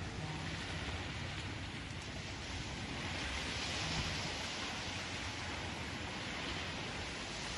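Small sea waves breaking and washing over a pebble beach, a steady rush that swells to its loudest about halfway through.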